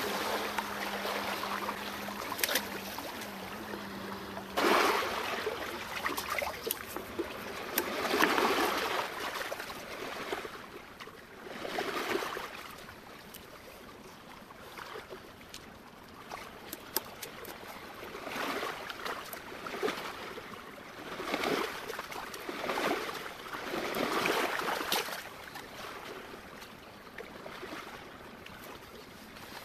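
Small sea waves washing against shoreline rocks, the water swelling and falling back in irregular surges every few seconds. A faint low hum stops about four seconds in.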